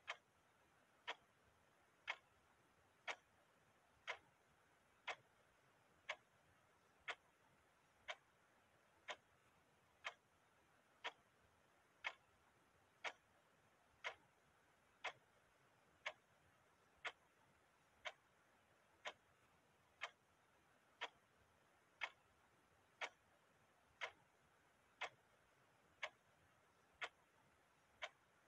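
Clock ticking steadily: one sharp tick about every second.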